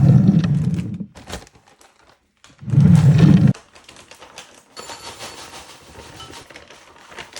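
Two loud bursts of shaking, then dry cereal or granola rattling steadily into a bowl as it is poured.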